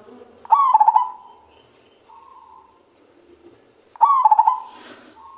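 Male zebra dove cooing twice, about half a second in and again about four seconds in. Each call is a quick run of staccato notes that trails into a held coo, in the deep, bass-toned voice prized in a gacor bird.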